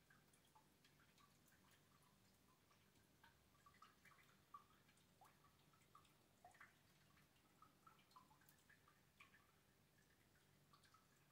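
Faint, irregular water drips: rain plinking in scattered drops, several a second, over a faint steady low hum.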